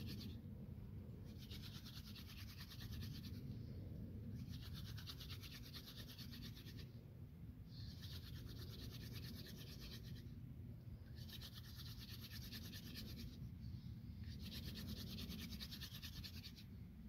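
Mullein-stalk hand drill spinning in a cedar hearth board: a dry, fast scraping rub in spells of two to three seconds, broken by short pauses as the hands go back to the top of the spindle, about six times over. The drilling is sped up at this stage to turn the hot wood dust in the notch into a coal.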